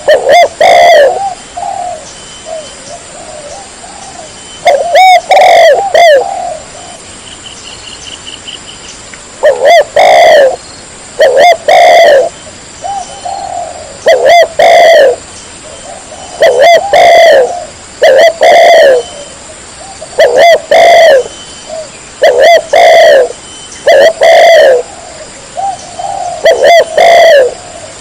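Spotted dove (chim cu gáy) cooing loudly, with short throaty coo phrases repeated about a dozen times, every one and a half to four seconds.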